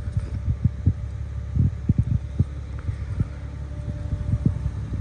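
A truck engine idling with a steady low hum, with irregular soft low thumps from a handheld camera being moved.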